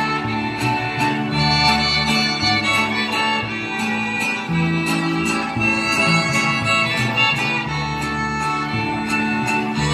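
A Mexican folk string ensemble plays a lively dance tune: violins carry the melody over strummed guitars and a bass line moving in held notes, with sharp ticks about twice a second.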